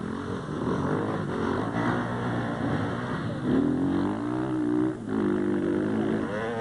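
Enduro motorcycle engine revving, rising and falling in pitch as the rider opens and closes the throttle; loudest from about three and a half to five seconds in, with a brief drop just after.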